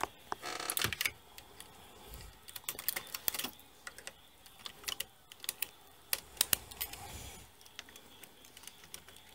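Irregular clicking and clatter of latch needles and a two-prong transfer tool on an LK150 knitting machine's needle bed as stitches are moved by hand to make a raglan increase.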